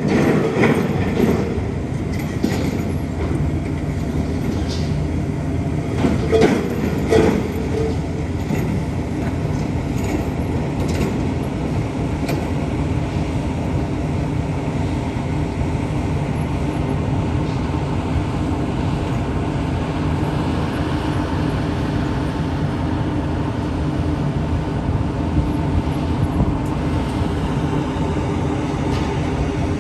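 Heavy diesel construction machinery, a crane and excavator, running steadily at a piling site. A few metallic knocks and clanks sound between about six and twelve seconds in.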